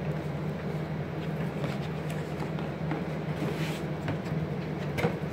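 Packaging of an instrument box being handled: light rustling and scattered clicks as the white box insert is lifted, with a sharper click near the end, over a steady low room hum.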